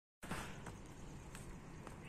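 A split second of dead silence at an edit cut, then faint steady outdoor background noise with three faint ticks.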